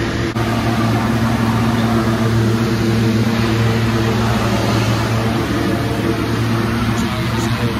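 Subway train running, a steady rumble with a low, even hum.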